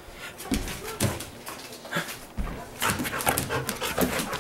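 A dog playing with a plush ball on a tile floor: quick clicks and scuffles of its paws on the tiles, with a few short vocal sounds from the dog, most of them between about three and four seconds in.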